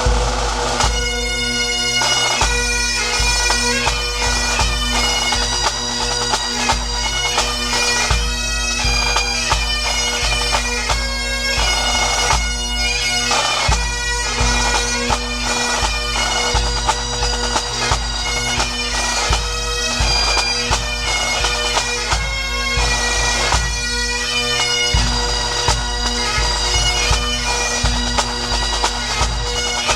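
Bagpipe music: steady drones held under a changing chanter melody, with a low drumbeat beneath.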